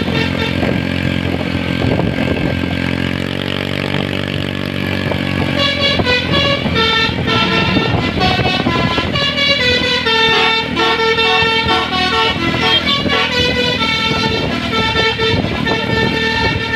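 Bus 'telolet' multi-tone musical horn sounding at length: from about six seconds in it plays a quick run of changing tones like a tune. Before that a lower, steady mix of pitched tones sounds with a slow downward glide.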